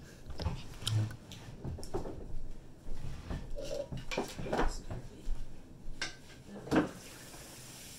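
Kitchen clatter: a string of short, irregular knocks and clinks as dishes and a cup are handled.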